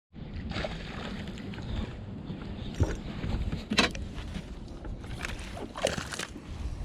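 Steady low rumble of wind and water around a small fishing boat, with a few sharp knocks and clicks scattered through it.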